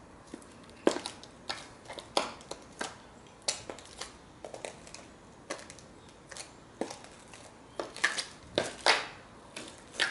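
Stiletto heels clicking on stone paving slabs in uneven steps and taps, some with a gritty crunch of grit and dry leaves underfoot. The loudest clicks come about a second in and again near the end.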